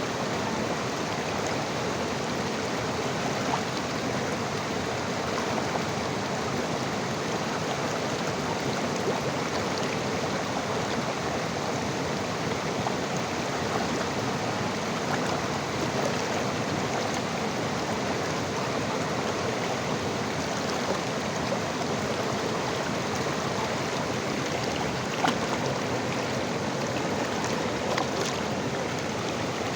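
A river flowing: a steady, even rush of water, with a few brief faint clicks here and there.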